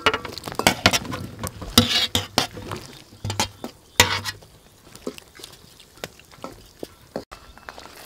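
Metal tray and utensils clinking and knocking against a wok as mushrooms are tipped in to blanch in hot water. A quick run of sharp clinks comes in the first half, then sparser knocks.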